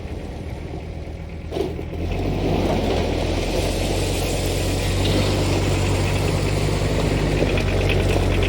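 Kubota tractor's diesel engine running steadily, growing louder about two seconds in, with one brief knock about one and a half seconds in.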